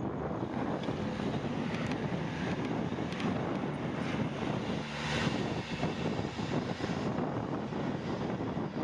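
Wind rushing over the microphone of a camera on a moving bicycle, a steady roar with road traffic noise, swelling briefly about five seconds in.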